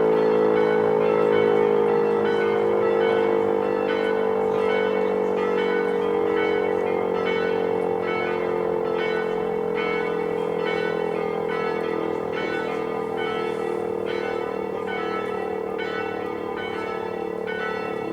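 Chapel church bells ringing in a steady run of strokes. A strong sustained tone under them sinks slightly in pitch and slowly fades.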